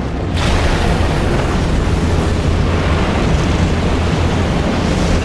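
Science-fiction film sound effect of energy beams devastating a city: a loud, dense roar of explosions with a heavy deep rumble. It swells up about half a second in and cuts off abruptly at the end.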